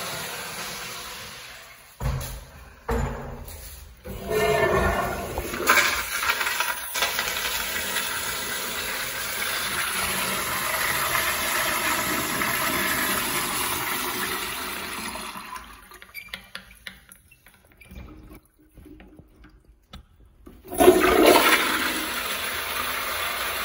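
Wall-hung Toto 1.6 gpf toilet flushed by its manual flushometer valve: two knocks, then a loud rush of water for about ten seconds that dies away with gurgles and crackles. Another loud rush starts suddenly near the end.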